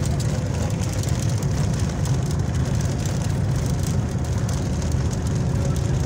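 Bus engine and road noise heard inside the passenger cabin: a steady low rumble with a hiss above it.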